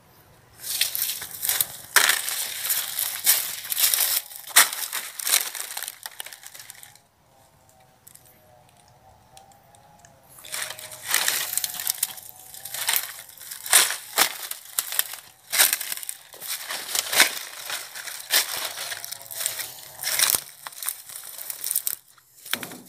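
Footsteps crunching through dry leaf litter and twigs, in irregular bursts of crackling with sharp snaps, broken by a lull of about three seconds in the middle.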